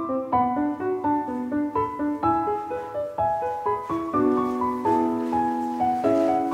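Background piano music: a steady run of single notes over lower chords at an even, unhurried pace.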